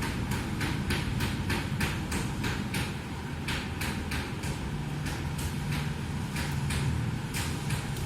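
Steady low rumble of street traffic, with a run of quick, light clicks or taps, about three to four a second, that pause briefly around three seconds in and then carry on.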